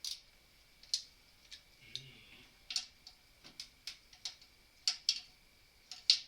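Socket ratchet being worked on an engine bolt in short strokes: sharp single clicks at irregular intervals, roughly one every half second to second.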